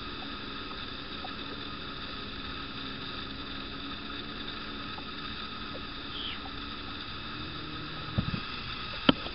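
Handling noises in a fishing boat over a faint steady outdoor background: a short falling chirp about six seconds in, then a few low knocks and one sharp click near the end as the angler works his tackle.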